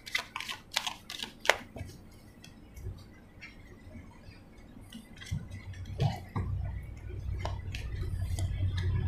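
A deck of oracle cards being shuffled by hand: a quick run of card flicks and snaps in the first two seconds, then sparser taps. A low rumble builds from about six seconds in.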